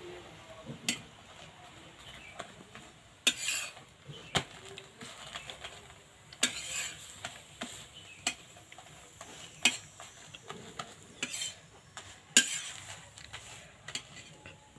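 Long metal spatula scraping and tapping on a flat iron tawa as a paratha is folded over on it: a run of irregular scrapes and sharp clinks.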